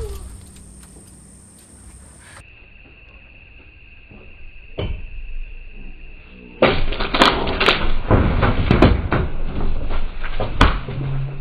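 A man falling through open roof framing: a loud crashing and clattering of wood and ceiling material, with several sharp cracks and knocks, starting a little past halfway through. Before it there are only faint work sounds and a single knock.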